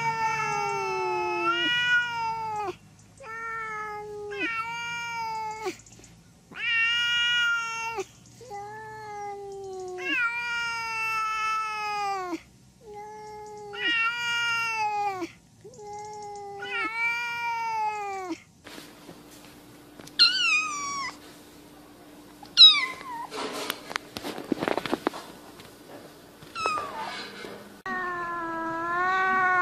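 Domestic cats meowing: a run of about ten long, drawn-out meows, each falling in pitch. Then come shorter, sharp sliding cries with some clicks, and one more long meow near the end.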